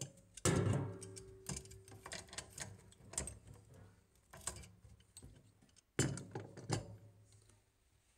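Scattered sharp clicks and knocks, roughly one a second, as braided stainless steel water supply lines are handled and knocked against their fittings and angle stop valves, over a low steady hum.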